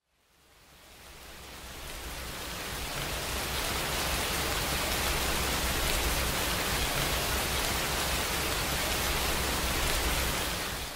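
Steady heavy rain, an even hiss with a low rumble underneath. It fades in over the first couple of seconds and eases off near the end.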